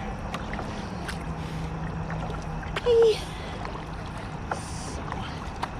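Kayak being paddled on a river: steady water and wind noise with small splashes and knocks from the paddle, and one brief louder sound about three seconds in.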